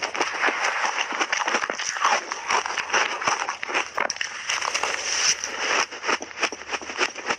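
Crunchy buckwheat-coated shaved ice being bitten and chewed in big mouthfuls, close to a lapel microphone: a dense, continuous run of crackling crunches.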